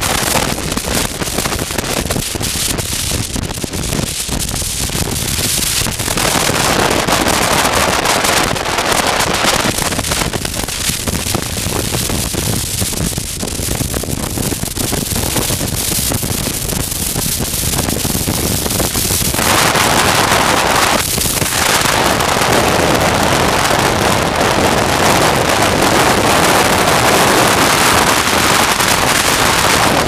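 Wind rushing over the microphone of a helmet camera on a moving motorcycle, with a crackling texture and the bike's engine buried underneath. It grows louder and fuller about two-thirds of the way through.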